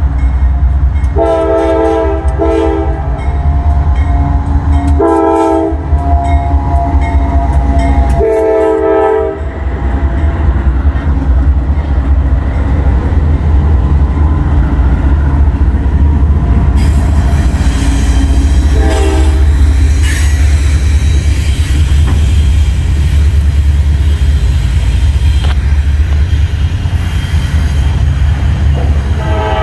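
Norfolk Southern diesel freight locomotive passing close, sounding its multi-note horn in four blasts over the first ten seconds over a heavy engine rumble, with one brief fainter blast later. After that the double-stack container cars roll by with steady wheel and rail clatter.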